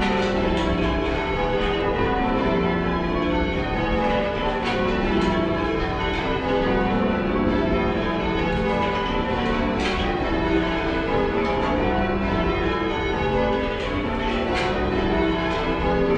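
Light ring of ten church bells being rung in changes, heard from the ringing room below: a continuous, even stream of overlapping bell strikes, slightly mushy in tone.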